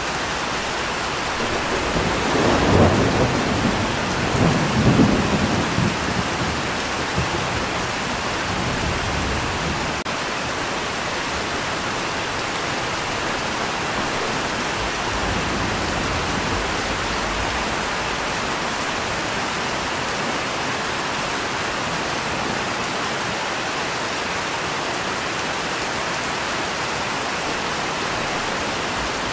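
Steady rain with a low roll of thunder. The thunder swells about two seconds in, peaks twice, and dies away by about seven seconds, leaving the even hiss of rain.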